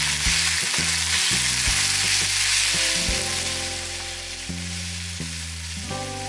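Ground beef and pumpkin flesh sizzling in a frying pan while a wooden spoon stirs it. The sizzle eases off somewhat about halfway through.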